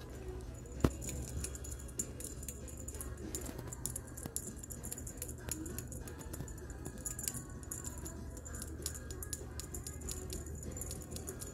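Wand cat toy and playing kittens on a hardwood floor: a run of quick, irregular light clicks and jingles as the ribbons and feathers are swung and batted, with one sharp knock about a second in.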